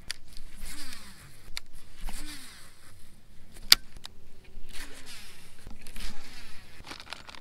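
Baitcasting rod and reel being cast and retrieved: a run of short whirring zips from the reel and line, about one every second and a half, with one sharp click near the middle.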